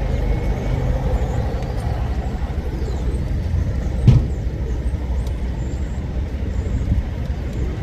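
Steady low rumble of road traffic with a few faint, short, high bird chirps and a single loud thump about four seconds in.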